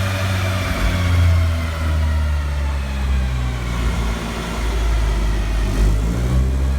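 A car engine running steadily, its pitch drifting slowly up and down.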